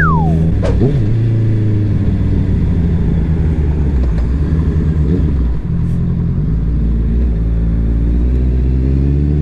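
A Honda CBR650R's inline-four engine running at low revs as the motorcycle slows down, with road and wind noise. The engine note dips briefly about five and a half seconds in, then holds a steady low note.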